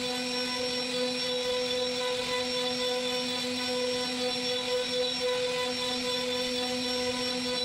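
CNC router spindle carving a wooden door panel: a steady whine made of several constant tones over a hiss of cutting.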